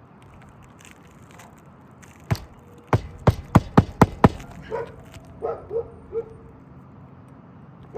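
Roofing nails being hammered into an asphalt shingle: one sharp strike, then six quick strikes at about four a second. A dog barks a few short times just after.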